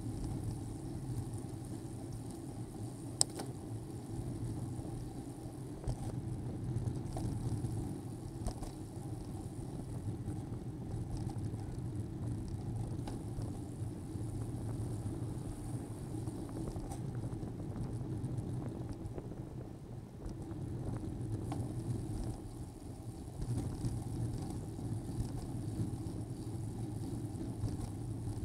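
Steady road and wind noise from a bicycle riding along a street, with car traffic mixed in, rising and falling gently. One sharp click about three seconds in.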